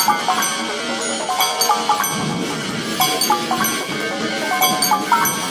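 Timer alarm tune: a repeating melody of quick, bright mallet-percussion notes.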